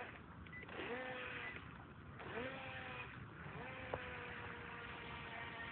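Small brushed electric motor of an RFD089 RC speed boat running in its self-driving demo mode. It whines up in pitch three times, each time settling to a steady tone, and holds the last one steadily.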